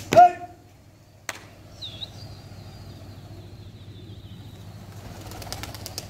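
Flock of domestic pigeons flying overhead, their wings flapping. A short, loud high-pitched call comes just after the start, a sharp click about a second later, and a quick run of clicks near the end.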